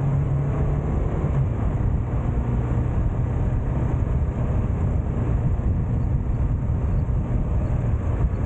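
Motorcycle engine running steadily under a heavy low rumble of wind noise, as heard while riding; the engine's hum eases slightly about a second and a half in.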